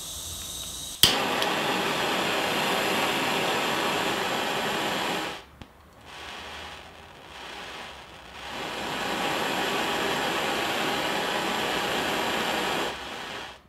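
Butane hand torch being lit: a click of the igniter about a second in, then the flame burns with a loud, steady rushing hiss. For a few seconds in the middle it drops to a smaller, quieter, unsteady flame. It then comes back up to full and is shut off near the end.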